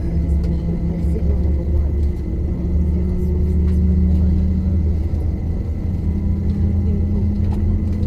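Cabin noise of an Airbus A319 taxiing, heard from a window seat over the wing: a steady low engine drone with a hum that steps slightly up in pitch about two-thirds of the way through.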